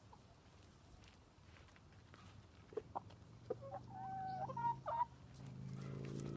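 Chickens clucking. A few short higher calls come around three to five seconds in, over a long, low drawn-out cluck that grows louder near the end.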